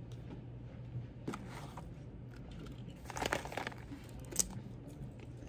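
Light rustling and a few short clicks and taps of small things being handled, over a low steady hum.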